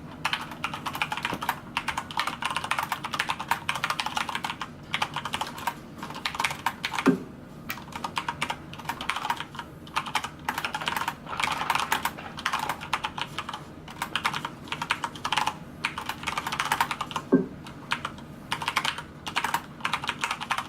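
Fast, continuous typing on a Corsair K70 Lux RGB mechanical keyboard: a dense rattle of key clicks with short pauses, and a louder knock twice.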